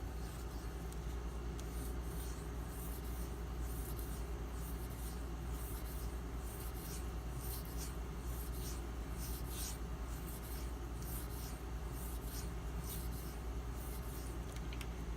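M390 steel knife blade stroked back and forth on a slurried 8000-grit Nubatama Ume waterstone in freehand sharpening: a soft, repeated scratchy rub, stroke after stroke, over a steady low hum.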